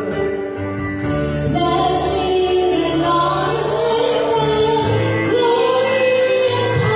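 A woman singing a slow worship song into a microphone over keyboard accompaniment.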